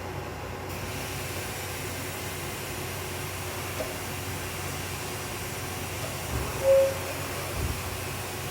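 Steady hiss with a faint hum and faint steady tones, the abnormal noise (異音) under examination from an NHX4000 unit. A short beep sounds about two-thirds of the way in.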